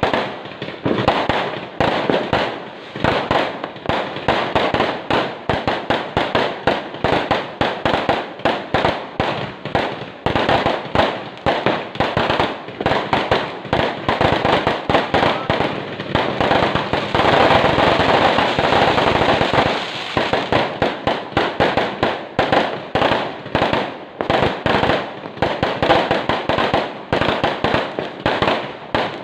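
Fireworks going off in a rapid, continuous barrage of bangs and pops, overlapping one another. A little past the middle the bangs merge into a denser, near-unbroken stretch for a few seconds.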